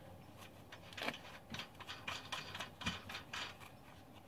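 Lug nuts being spun and snugged by hand onto the wheel studs of a steel spare wheel: an irregular run of light metallic clicks and scrapes.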